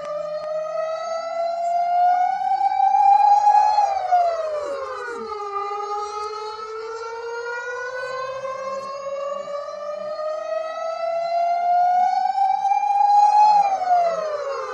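Civil-defense-style siren played backwards, so each wail climbs slowly in pitch and then drops off quickly. The pitch falls fast about four seconds in, climbs again for about eight seconds, and falls fast again near the end.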